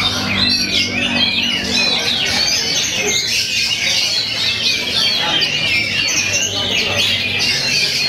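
Dense, unbroken chorus of caged songbirds singing over one another in quick, wavering high phrases, with the oriental magpie-robin (kacer) in the nearest cage among them.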